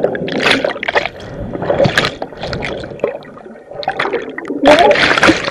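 Pool water churning and gurgling around an underwater camera in a waterproof case, muffled, in irregular surges; it dips quieter a little past halfway, then churns louder near the end.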